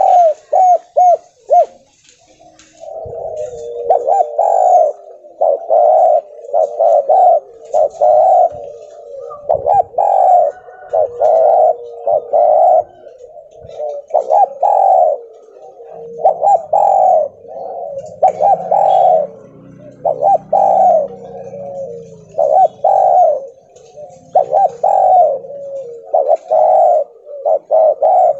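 Spotted dove cooing over and over: a quick run of short coos at the start, then after a short pause a steady series of coo phrases, roughly one a second. A faint low drone sits under the calls for several seconds in the middle.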